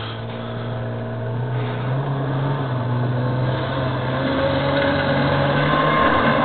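John Deere snowmobile engine running and growing steadily louder as it comes closer, its pitch rising in steps as the throttle opens.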